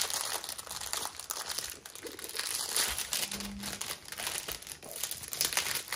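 Packaging crinkling and rustling in irregular bursts as a rolled diamond-painting canvas is handled and pulled out of its wrapping.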